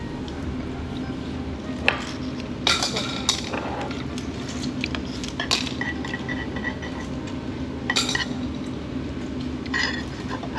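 Tableware clinking during a meal: spoons and chopsticks knocking against bowls in scattered strokes, over a steady low hum.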